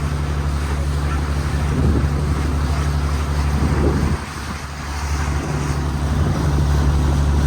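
Tour boat's engine running steadily underway, with wind buffeting the microphone. The engine level drops briefly a little past halfway, then builds back up.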